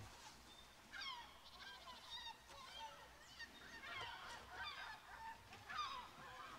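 Faint calls of several birds: many short calls, each sliding down in pitch, overlapping one another.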